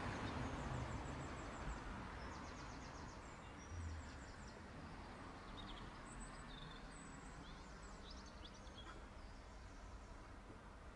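Faint outdoor street ambience, with traffic noise fading away over the first few seconds and small birds chirping and trilling in short, high-pitched phrases.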